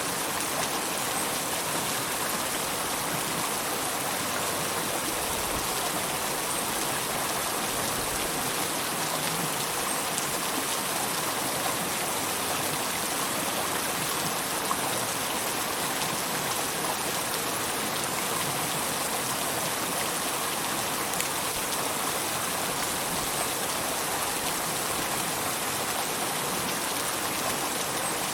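River water flowing, a steady, even rushing with no change in level.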